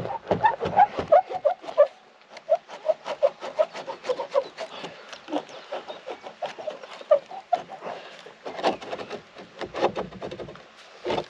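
Long metal bolt squeaking and clicking in the boat's wooden stem as it is twisted and drawn out with pliers: a quick, irregular run of short squeaks, with a few louder knocks about two-thirds of the way through.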